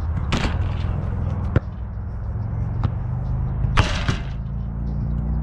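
Soccer balls hitting the goal net right at the net-mounted camera: a swishing impact about half a second in and a louder one about four seconds in. Between them come sharp, distant kicks of a ball, over a steady low rumble.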